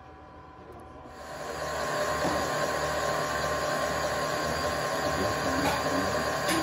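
Manual vertical milling machine running with its end mill working a metal block held in a vise. The steady machine noise comes in about a second in and holds.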